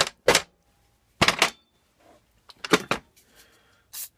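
Short scraping strokes, in ones and twos with pauses between, from hand work on an old small-engine block.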